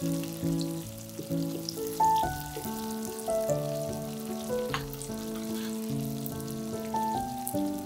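Food frying in oil in a pot, a light sizzle and crackle, under background music whose melody is the louder sound.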